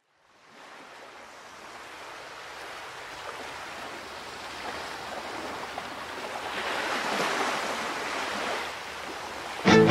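Rushing water like waves or surf, slowly building in loudness and then easing off. A band with strummed guitar comes in suddenly at the very end.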